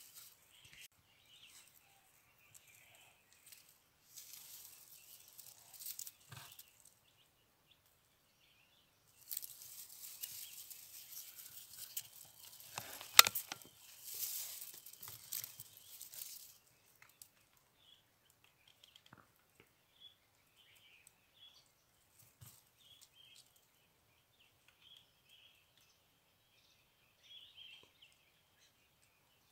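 Faint chirps of small birds, with stretches of rustling handling noise, and one sharp crack about thirteen seconds in, a PCP air rifle firing.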